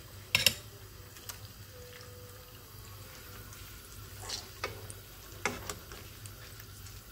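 Chopped chicken cutlets frying quietly in a nonstick pan, broken by several sharp clicks and scrapes of a metal slotted spatula against the pan as the cutlets are turned.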